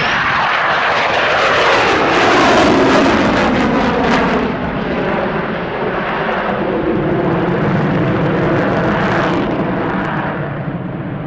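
Aircraft passing close by at low height: its engine noise drops steeply in pitch as it goes past, loudest a couple of seconds in, then carries on as a steady drone.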